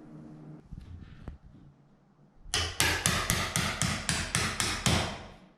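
Hammer tapping a wood chisel: a quick, even run of about a dozen strikes, roughly four a second, starting about halfway in. The chisel is paring a little wood from the latch hole in a door edge so a new latch will fit.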